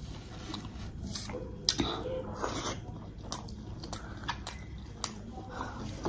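A person chewing and biting food close to the microphone, with irregular short clicks of the mouth and food.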